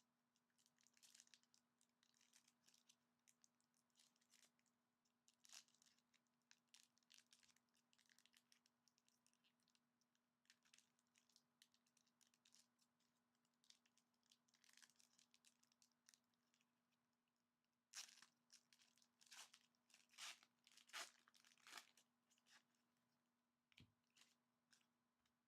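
Trading card pack wrappers crinkling and tearing as packs are opened, soft and scattered at first, then a run of louder crinkles in the last third.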